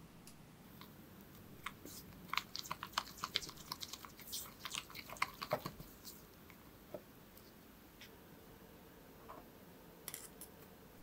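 Red silicone spatula mixing vanilla paste into soft creamed butter in a glass bowl: a quick run of small wet clicks for about four seconds, then a few faint ones.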